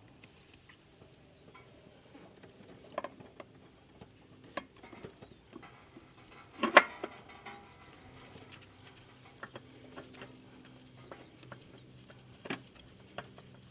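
Light clicks and knocks of hands threading a new spin-on oil filter onto the engine's filter mount, with one louder clack about halfway through.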